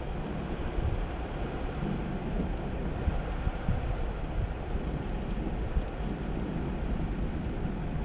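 Jeep Gladiator pickup driving off-road: a steady rumble of engine and tyres, with a few brief low thumps.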